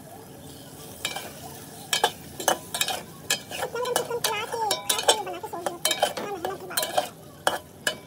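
A metal ladle stirring egg masala in a metal pot, knocking and scraping against the pot's sides in irregular clinks from about a second in, over the sizzle of the frying masala.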